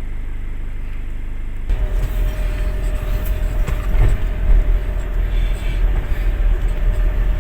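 Truck engine running: a steady low hum, then from about two seconds in a louder, rougher rumble.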